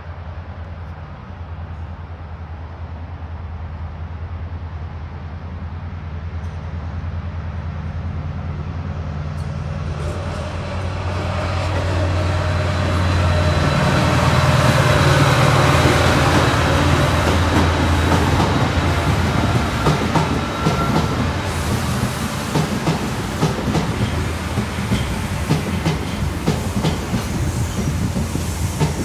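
Class 68 diesel locomotive approaching and passing with its passenger coaches: the engine's steady drone grows louder to a peak about halfway through, then the coaches run by with a quick clickety-clack of wheels over the rail joints.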